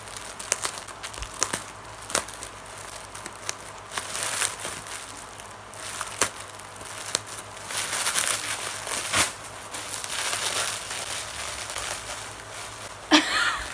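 Plastic packaging crinkling and crackling in irregular bursts as it is pulled and torn open by hand.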